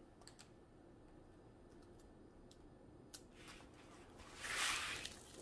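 A large diamond painting canvas, covered in plastic film, rustling as it is lifted and turned over, a brief swell about four and a half seconds in, after a few faint taps.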